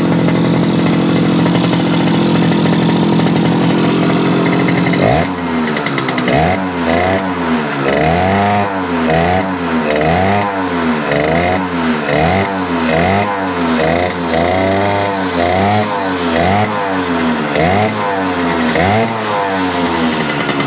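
Yamaha YL2C Trailmaster 100 two-stroke motorcycle engine running steadily, then blipped by hand at the carburetor about once a second from about five seconds in, the revs rising and dropping back each time. It is being tested after a crankshaft seal replacement meant to cure high-speed run-on from an air leak, and the owner finds it much better.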